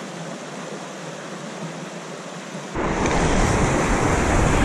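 Shallow, fast stream rushing and splashing over rocks, a steady hiss of running water. About three seconds in, it abruptly gets much louder and fuller, with a deep rumble added.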